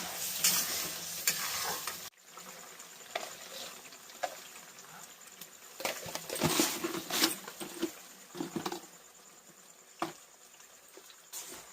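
Food frying in a cooking pan while it is stirred, with scattered scrapes and knocks of the spoon against the pan. The sound is louder in the first two seconds, then drops suddenly.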